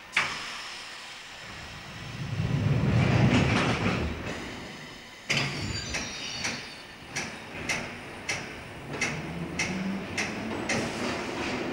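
London Underground train running, heard from inside the carriage. About five seconds in there is a sudden jolt, and after it the wheels click over the rail joints about twice a second.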